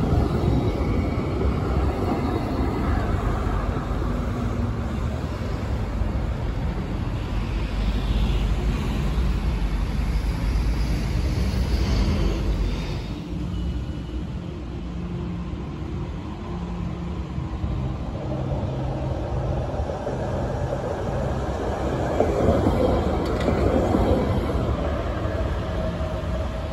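Avignon's modern low-floor electric tram passing on its rails: a low hum of motors and running gear with rolling wheels. It fades at a cut about thirteen seconds in, then swells again as another tram approaches, with road traffic running alongside.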